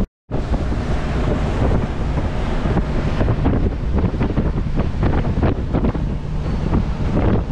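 Strong wind gusting across the microphone on the deck of a catamaran under way at sea, with the rush of waves and water beneath it. The sound cuts out completely for a moment just after the start.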